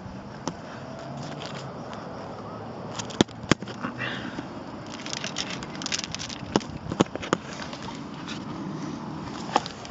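Scattered sharp knocks and scrapes of a climber's hands and boots on bare rock during an unroped scramble, about seven in all, over a steady hiss.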